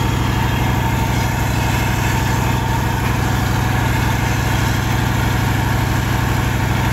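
Sand-suction dredge's engine running steadily at constant speed while it drives the pump drawing sand and water through the suction hose.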